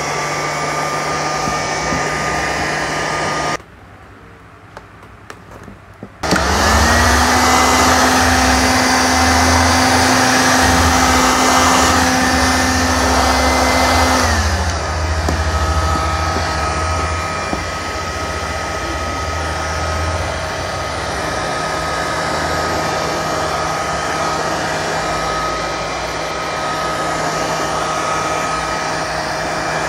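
Electric heat gun blowing hot air: a steady fan whine over a rush of air. It stops briefly about 4 s in, comes back louder and higher-pitched a couple of seconds later, and settles to a lower pitch about halfway through.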